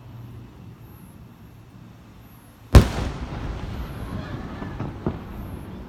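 A firework shell bursting with one loud, sharp bang a little under three seconds in. About two seconds of echoing noise follow, then a smaller pop.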